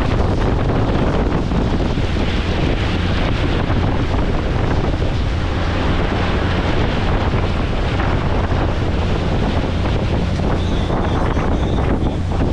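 Steady, loud wind buffeting the microphone aboard a motorboat out on the water, with the wash of water and the boat's running noise underneath.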